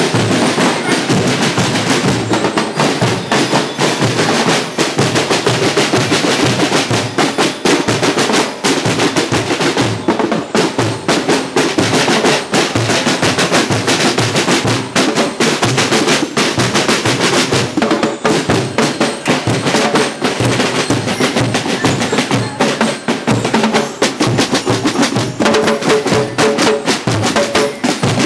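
A marching drum and lyre corps' drum line playing snare drums and bass drums together: a loud, fast, continuous beat with rolls.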